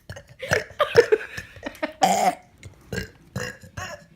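A person burping several times in a row, the longest and loudest belch about two seconds in.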